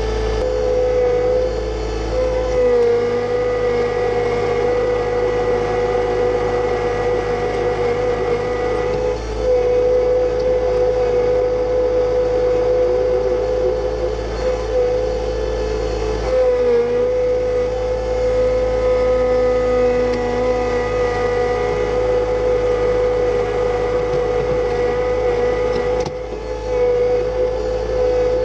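John Deere 2025R compact tractor's three-cylinder diesel running steadily under load while it pulls a rock rake, with a steady whine. The pitch dips briefly twice, a few seconds in and again about halfway through.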